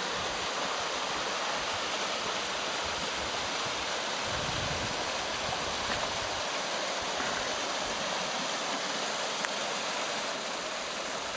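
Small waterfall pouring into a shallow pool: a steady, even rush of falling and splashing water.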